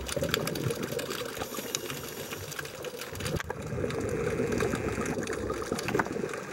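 Underwater noise picked up by a diver's camera: a steady low rush of water and bubbles with many scattered sharp crackling clicks. It grows louder and deeper from about three and a half seconds in.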